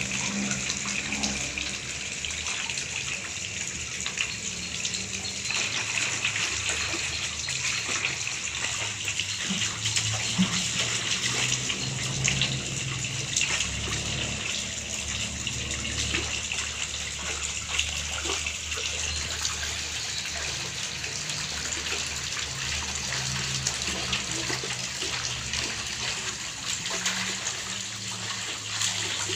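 Water splashing and sloshing continuously in a large aluminium basin as a toddler slaps and pushes it about with his hands, with many small splashes.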